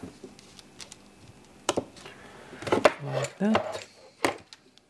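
Small hard parts and tools being handled on a workbench: scattered clicks, knocks and clinks, busiest about three seconds in, with a brief low voice sound among them.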